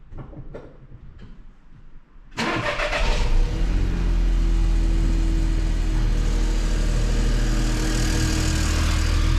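Car engine starting: a few faint clicks, then about two seconds in the engine cranks and catches, flares briefly and settles into a steady idle.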